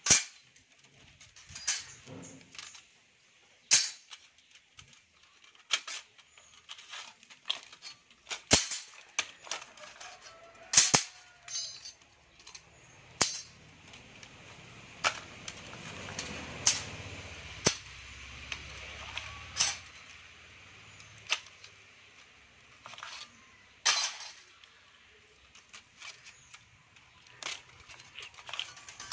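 Steel E-I laminations being worked loose from an old step-up transformer core, their sheets stuck together with varnish: sharp metallic clicks and clinks at irregular intervals. A rushing noise swells and fades in the middle.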